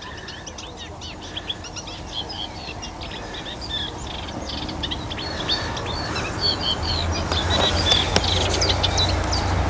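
Small birds singing and chirping busily, many short quick calls overlapping. A low rumble builds up and grows louder through the second half.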